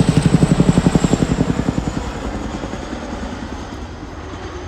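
Boeing Chinook HC.6 tandem-rotor helicopter's rotor blade slap: a loud, rapid thudding pulse of about eleven beats a second. After about two seconds it fades to a softer, steadier rotor and engine sound.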